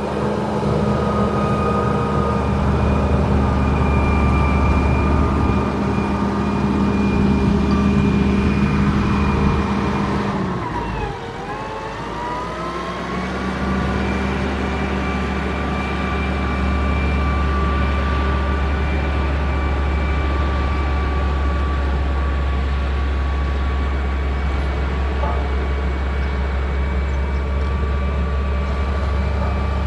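Heavy diesel engine of a motor grader running under steady load; about eleven seconds in its speed drops sharply and then climbs back to a steady pitch.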